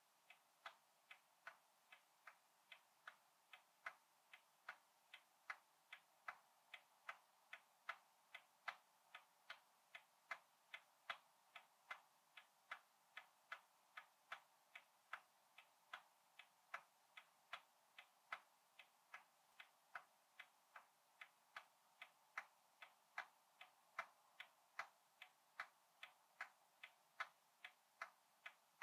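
A roughly 100-year-old clock ticking steadily and faintly, about two ticks a second, with the tick and the tock alternating in strength.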